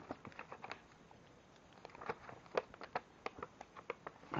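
Paper pages of an instruction manual being turned and handled with gloved hands: a scattered run of short paper crackles and taps.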